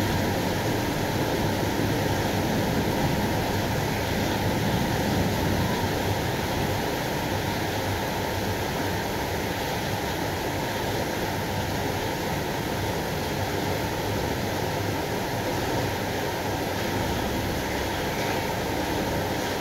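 Heavy thunderstorm rain pouring down in a steady, even rush of water, with no thunderclap.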